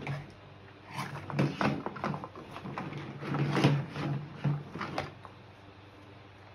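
Hard plastic toy parts knocking and clicking as a leg piece is handled and fitted onto a large plastic dinosaur toy. A cluster of knocks comes between about one and five seconds in, the loudest near four seconds.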